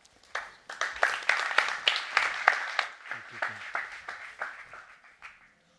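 Audience applauding, loudest in the first few seconds and dying away near the end.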